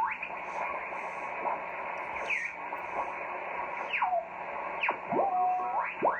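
Swan 350C transceiver's receiver audio: steady band hiss with whistling carrier tones that glide up and down in pitch, some held briefly at one note, as signals beat against each other on the band.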